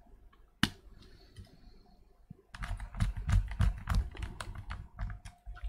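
Plastic clicks and knocks from a Bluetooth speaker's housing being handled and put back together: one sharp click about half a second in, then a rapid, uneven run of clicks from about halfway on.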